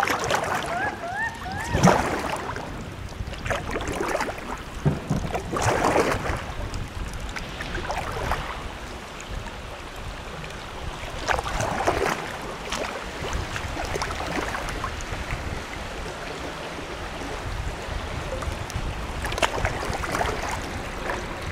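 Kayak paddle dipping and splashing in the river in a series of uneven strokes, most frequent in the first half, over a steady rush of wind on the microphone.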